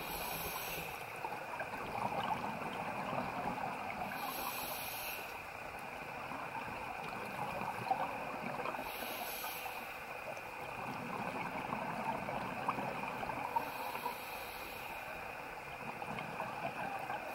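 Scuba diver breathing through a regulator, heard underwater through the camera housing: a hissing burst of exhaled bubbles about every four and a half seconds, four times, over a steady crackling background.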